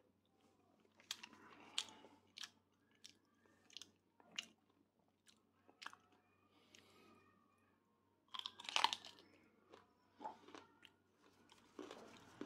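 A person chewing and biting food close to the microphone: irregular small crunches and mouth clicks, with a louder run of crunching about two-thirds of the way through.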